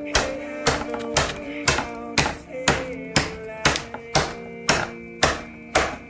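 A USB cord smacked repeatedly against a painted 3D-printed PLA blaster, sharp strikes about twice a second, beating gouges into the paint to weather it. Background music runs underneath.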